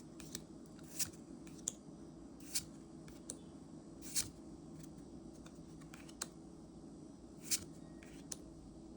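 Trading cards being handled and flipped through: soft, irregular clicks and light snaps of card stock, about one every second or so, over a faint steady hum.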